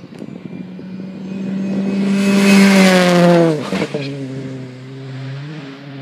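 WRC2 rally car's turbocharged four-cylinder engine at steady high revs, growing louder as the car approaches, loudest about three seconds in, then dropping sharply in pitch as it passes close by and pulls away, with a short rise in revs near the end.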